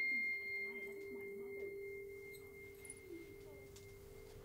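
Sustained eerie soundtrack tones, a low hum with a high ringing tone above it like a tuning fork, slowly fading; the high tone dies away about three seconds in.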